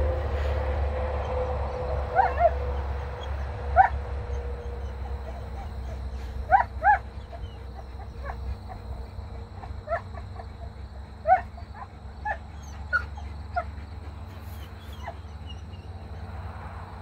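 A dog whining and yipping: about a dozen short, high-pitched whines scattered irregularly, some in quick pairs, over a steady low rumble.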